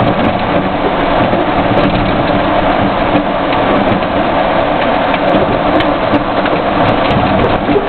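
Loud, steady engine and road noise inside a military vehicle's cabin as it drives over a dirt road, with small rattles and clicks.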